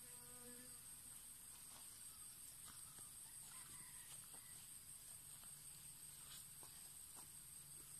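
Near silence: faint steady high hiss with a few faint ticks, and a brief faint pitched sound in the first second.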